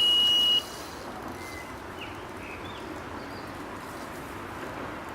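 Electronic carp-fishing bite alarm sounding one steady high tone that cuts off about half a second in, signalling a pickup on the line. Then a steady background hiss with a few faint chirps.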